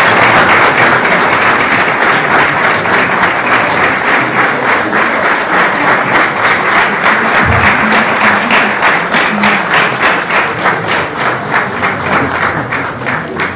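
A group of people clapping hands in unison, a steady rhythmic clap of about four beats a second over a wash of general applause, growing fainter near the end.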